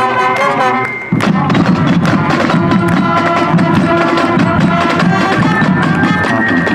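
High school marching band playing: a held brass chord breaks off suddenly about a second in, and the band comes back in with snare and bass drums beating under sustained horn notes.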